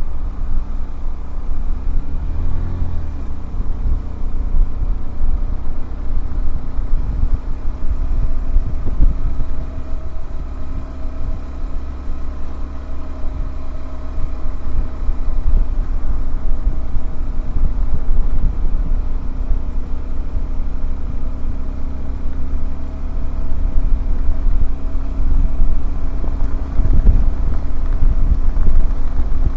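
Single-cylinder engine of a Honda CBF125R motorcycle running at a steady cruise while riding, under heavy wind rumble on the microphone.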